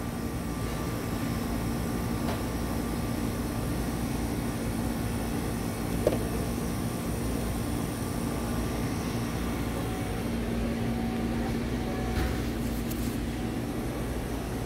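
Steady low hum and rumble of a supermarket's air conditioning and refrigeration, with a faint steady tone over it and a small knock about six seconds in.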